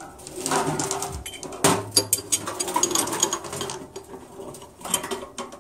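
Steel balls, cage and inner race of a new CV joint clicking and clinking metal on metal as the parts are turned by hand and the balls are fitted back in, with irregular sharp clicks.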